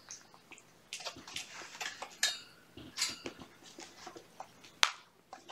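Young kittens moving about close to the microphone: irregular small clicks, taps and rustles, with one sharp tap near the end.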